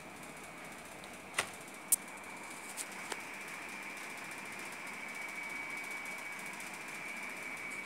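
Four sharp clicks and taps from a plastic blister pack of hex keys being handled and set down on a desk, all within the first three seconds, the second the loudest. A faint steady high whine and hiss runs underneath.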